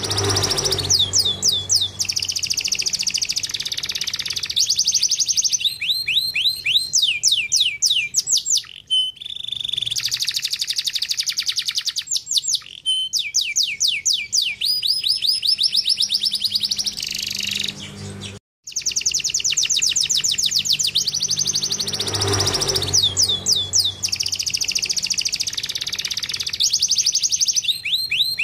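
Domestic canary singing loudly: long rapid trills and fast runs of repeated down-sweeping notes. The song breaks off for a moment about two-thirds of the way through.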